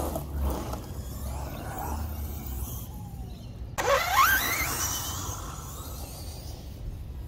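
Arrma Limitless 6S RC car's brushless electric motor whining as the car drives; about four seconds in it launches hard, the whine rising sharply in pitch, then fades as the car pulls away.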